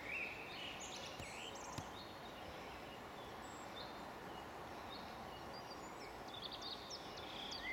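Songbirds singing faintly over a steady hiss of open-air background noise, with short warbling phrases at the start and again near the end.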